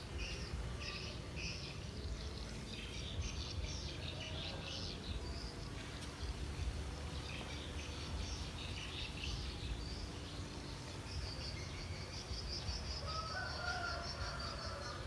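Birds chirping in short, repeated high notes, with insects and a long, steady high trill in the last few seconds over a low outdoor rumble.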